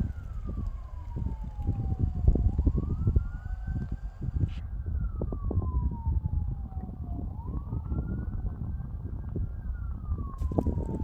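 A siren wailing, its pitch climbing slowly, holding briefly, then sliding down again, about once every four to five seconds. Heavy wind buffeting on the microphone rumbles underneath and is the loudest sound.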